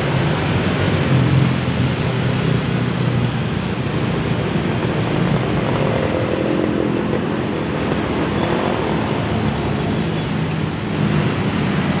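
Busy road traffic: motorcycles and cars passing close by, with a steady rumble of engines and tyres. About halfway through, one engine comes up and passes close.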